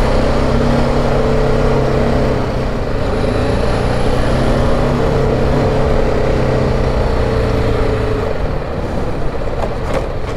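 BMW G 310 GS's single-cylinder engine running at low city speed, with road and wind noise on the bike's microphone. The engine note eases off about eight seconds in.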